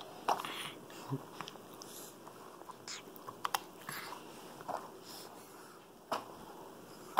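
Irregular soft taps, clicks and rustles of a capuchin monkey batting a fuzzy toy against a person's face and mouthing it, close to the microphone.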